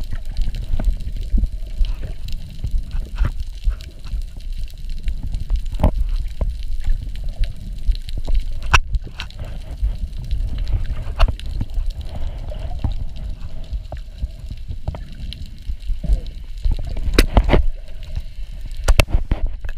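Ocean water heard underwater through an action camera's waterproof housing: a steady, muffled low rumble with scattered sharp clicks and gurgling of bubbles.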